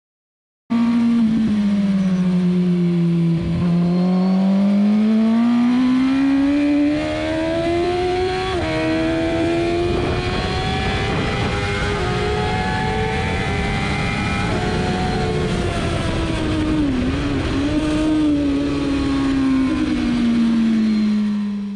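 Suzuki GSX-R1000 inline-four engine at high revs on a track lap, with heavy wind rush. It cuts in about a second in, its pitch dipping, then climbing for several seconds, with a short dip later on and a fall near the end as it fades out.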